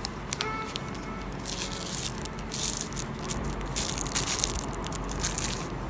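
Small clear plastic zip-lock bag crinkling and rustling as it is handled, in irregular clusters that are densest from about a second and a half in.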